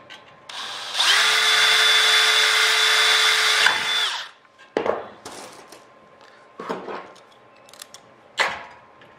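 Cordless drill running at a steady speed for about three seconds as it bores a rivet hole through the aluminium aileron spar into the rib, then spinning down. A few light knocks follow.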